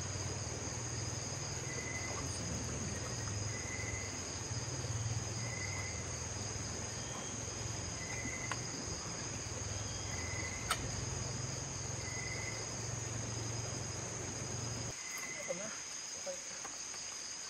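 Insects chirring steadily in a high, continuous trill, with a short high note repeating about every two seconds. A low hum underneath cuts off about fifteen seconds in.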